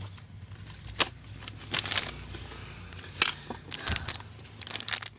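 Hands handling plastic packaging and small Beyblade parts: a few scattered light clicks and rustles over a faint steady low hum.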